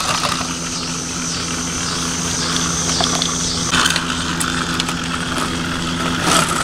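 A steady motor hum with a low, even drone, a faint wavering high whine over it in the first few seconds, and a sharp click shortly before the end.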